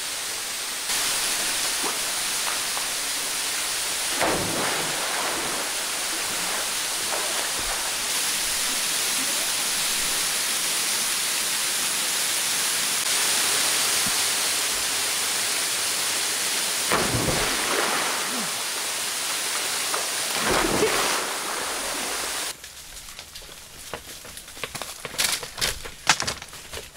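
Waterfall pouring into a rock pool: a steady rush of falling water with a few louder swells. About 22 seconds in it cuts off abruptly, and a quieter stretch follows with a few sharp knocks and taps.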